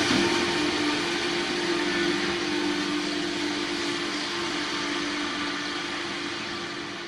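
A train passing out of sight, its rumble and rail noise fading steadily as it draws away, with a steady low hum underneath.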